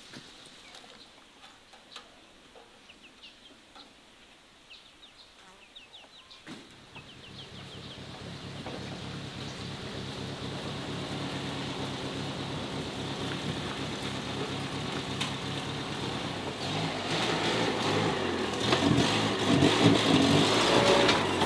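A few faint high chirps over a quiet yard, then about six seconds in a UAZ-452 van's engine comes in, running steadily and growing louder as the van drives closer.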